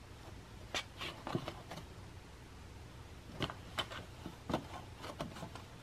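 Cat's paw scraping and tapping inside a cardboard box as she fishes for a toy: a scatter of short, faint scratches and knocks, bunched about a second in and again in the second half.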